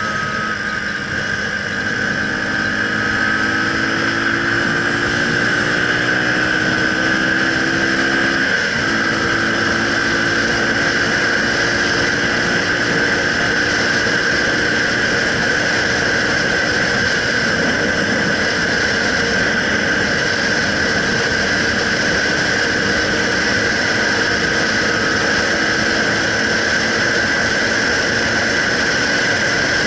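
Motorcycle engine running while riding along at road speed, with steady wind rush. The engine note climbs slowly over the first several seconds and breaks off briefly about nine seconds in before carrying on.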